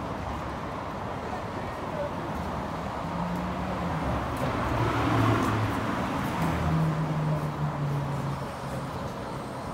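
City street traffic: a steady hum of passing cars, with one vehicle's engine drawing near and growing loudest about five to seven seconds in, then fading.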